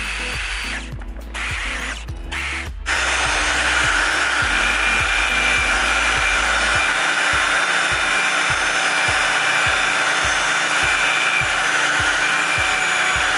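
Electric drill spinning a wire wheel brush against a metal bracket, scrubbing dirt off it. It runs in short bursts with brief stops for the first few seconds, then runs steadily from about three seconds in.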